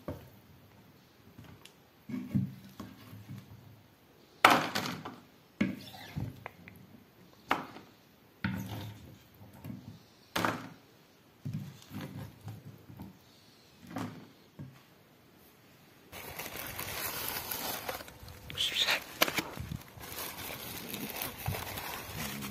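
Wooden spoon knocking and scraping against a glazed clay dish and plastic trays, a sharp knock every second or two. About two-thirds of the way in, this gives way to steady background noise.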